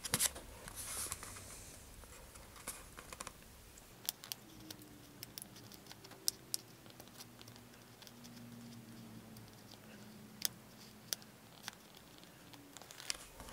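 Hobby knife trimming thin vacuum-formed plastic against the edge of a cardboard body tube in a series of small cuts: faint, irregular clicks and scratches.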